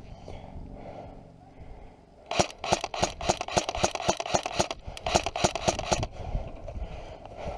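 Airsoft gun firing a quick string of sharp shots, about five or six a second, starting a couple of seconds in and stopping after nearly four seconds.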